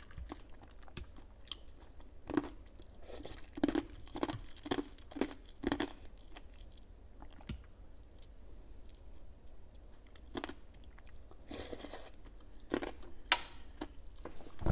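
Close-mic chewing and crunching of a mouthful of fruit cereal with tiny ice cubes, in irregular bursts of crunches with a quieter pause in the middle.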